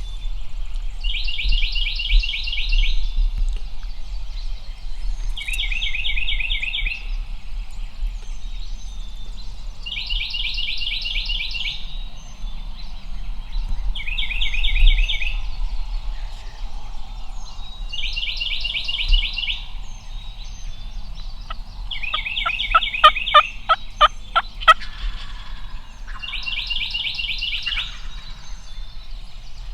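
A songbird's trill, about two seconds long, repeated every four seconds or so. About 22 seconds in, a wild turkey yelps, a quick run of about eight yelps.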